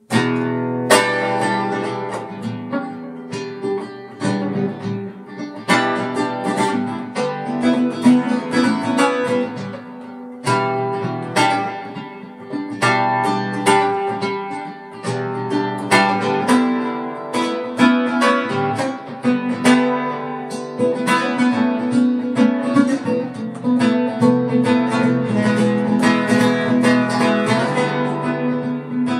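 Solo guitar playing an instrumental piece. It starts suddenly and runs on as a busy stream of sharply picked and strummed notes.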